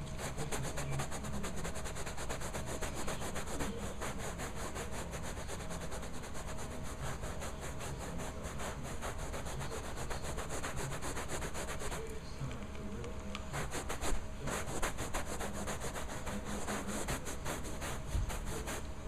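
Stiff-bristled hand scrub brush scrubbing carpet pile in rapid back-and-forth strokes, the bristles rasping over the fibres, with a short let-up about twelve seconds in.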